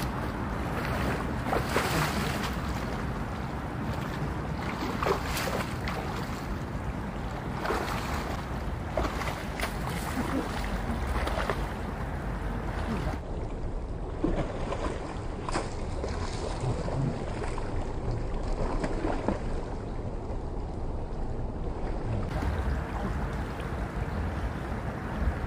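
Wading through a river: irregular splashes of legs moving through flowing water over the steady rush of the current, with wind on the microphone.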